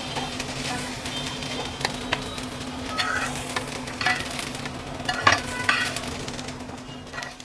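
Mixed vegetables (peas, carrots, French beans and baby corn) sizzling in oil in a nonstick frying pan, over a steady low hum. A spatula and then a slotted metal spoon scrape and clink against the pan several times from about two seconds in as the vegetables are stirred and scooped out.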